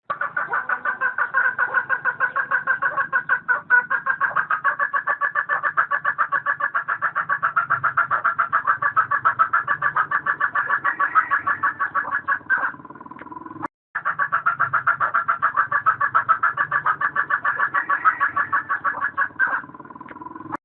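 Hens cackling in a rapid, even run of clucks, about six a second: the cackle of laying hens. The sound cuts out briefly about two-thirds of the way through, then carries on.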